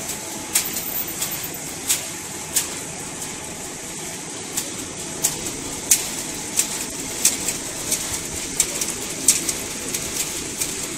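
Cereal production line machinery running with a steady noise, with irregular sharp ticks about once or twice a second.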